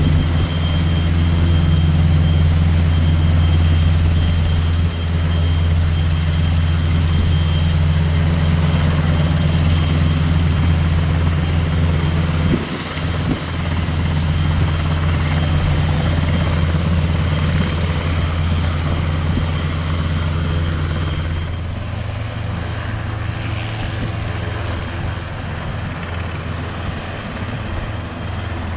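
NH90 helicopter's twin turboshaft engines and main rotor running on the ground: a steady low rotor drone with a steady high turbine whine. About three-quarters of the way through the sound drops a little and the whine fades.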